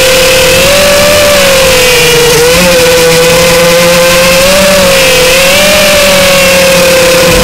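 Furibee X215 Pro racing quadcopter's motors and propellers whining, picked up very loud by a camera riding on the quad itself. One steady tone with its overtones, its pitch wavering gently up and down as the throttle changes.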